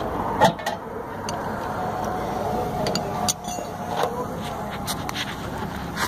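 Scattered sharp metallic clicks and knocks from hand work on a car's rear disc brake caliper, a few of them in turn, over a steady background noise.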